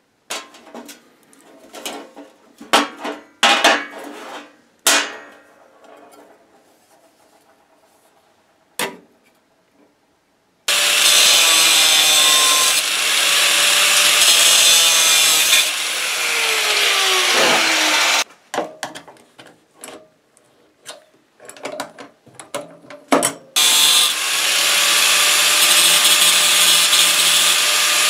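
Knocks and clatter of metal parts being handled and clamped, then a grinder's cut-off disc cutting a thin steel rod. It runs for about seven seconds, spins down with a falling whine, there are a few more knocks, and then it starts cutting again about four seconds before the end.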